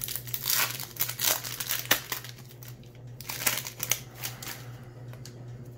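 Plastic trading-card pack wrapper crinkling as it is handled and torn open, with sharp crackles through the first four seconds or so that then die down. A steady low hum sits underneath.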